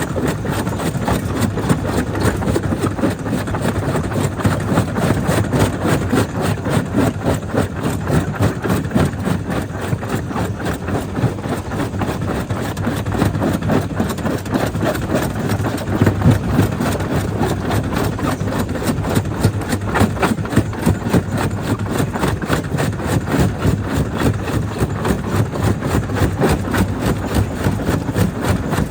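Jaw crusher running, a steady low machine hum with a dense, irregular crackle and knocking of stone being broken between the jaws, a few knocks standing out louder.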